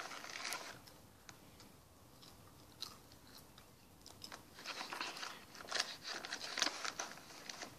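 Popcorn being chewed and crunched close to the microphone in short crisp bursts, sparse at first and thicker in the second half.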